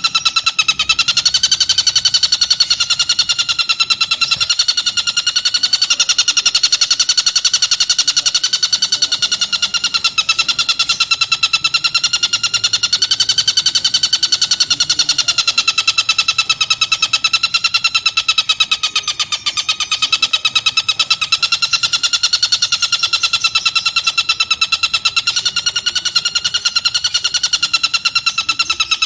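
Tengkek buto kingfisher calling in a continuous, rapid run of harsh repeated notes, with no break.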